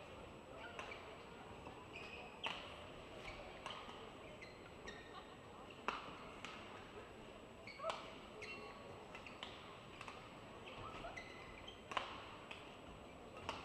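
A badminton rally: sharp racket strikes on the shuttlecock at irregular intervals, the loudest about six, eight and twelve seconds in, mixed with short high squeaks of court shoes, over a faint murmur in a large hall.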